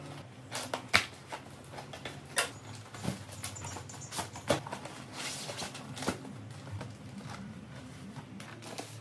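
A cardboard shipping box being opened by hand: flaps and paper packing rustle and crackle, with scattered sharp clicks and knocks as the box inside is handled, the loudest about a second in.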